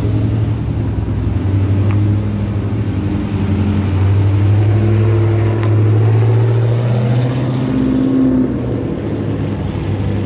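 Dodge Challenger V8 engine running at low speed as the car drives past, a deep steady drone with a few slight rises in pitch; a second car's engine joins as it follows.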